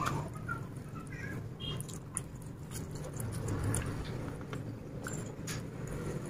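Close-up chewing and lip-smacking of a person eating chicken biryani by hand, with scattered small wet clicks, over a steady low background hum.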